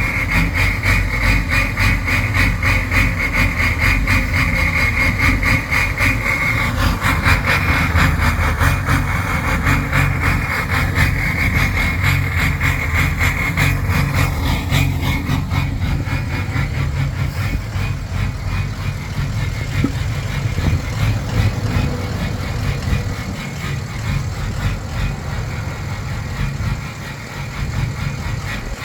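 Ford 6.0 Power Stroke V8 turbo-diesel idling roughly, with a high whine over it that fades out about halfway through.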